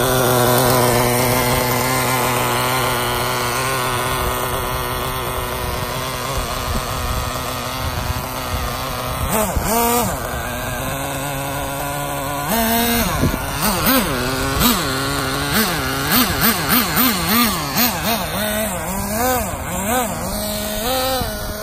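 Traxxas Jato 3.3's small nitro engine (TRX 3.3) idling steadily, then revving briefly about ten seconds in. From about halfway it revs in quick repeated blips, its pitch rising and falling about twice a second as the throttle is worked and the truck moves off.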